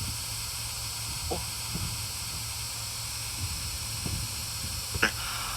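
Steady hiss of rain, with a few faint scattered taps and one short sharper sound near the end.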